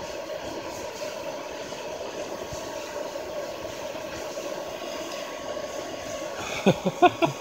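Hair dryer running steadily, forcing air through a steel pipe into a bucket charcoal furnace: a steady, even hum. A few short, louder sounds break in near the end.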